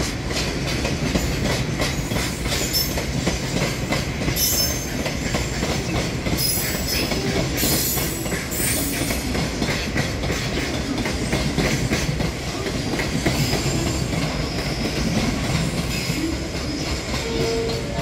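Freight train of tank wagons rolling past, wheels clattering steadily on the rails, with several bursts of high-pitched wheel squeal about four to nine seconds in.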